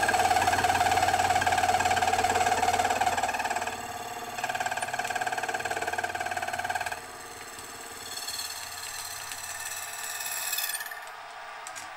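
Milling machine running a slitting saw that whines as it cuts through a metal rod clamped in a vise, slitting the conrod's big-end bushing in two. The cutting noise is loud at first, quieter after about seven seconds, and stops near the end.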